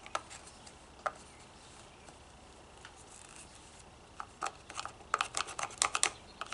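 Clicks and rubbing from a string trimmer's bump-feed head being handled and turned over by hand: a couple of isolated clicks, a quieter stretch, then a quick run of clicks near the end.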